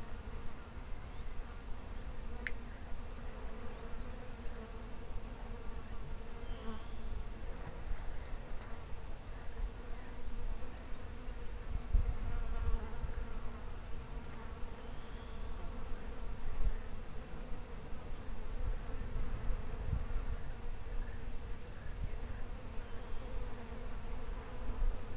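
Insects buzzing steadily close to the microphone, over a low rumble, with one sharp click a couple of seconds in.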